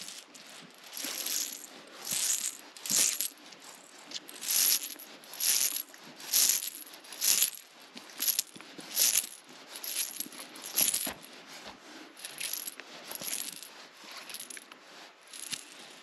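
Nylon cord being drawn hand over hand around a tree trunk and through its knot, giving a steady run of scratchy swishes, about one a second.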